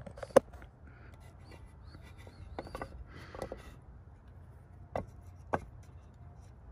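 Front wheel hub being turned over and settled on wooden boards: a few sharp knocks against the wood and some rubbing and scraping as it is shifted until it sits steady.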